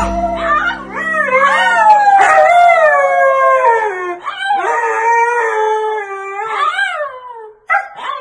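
An adult husky and a husky puppy howl together in long, wavering howls that slide down in pitch. The howling breaks off briefly shortly before the end, then starts again.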